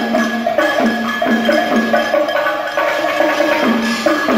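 Upbeat music with a melody of short, repeated notes over light percussion.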